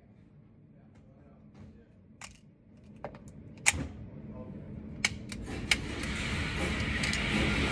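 Metallic clicks and clacks of an FMK 9C1 Gen 2 9mm pistol being worked by hand, the slide racked to clear a spent case that failed to extract; the clack a little past halfway is the loudest. A steady noise swells up behind the clicks in the second half.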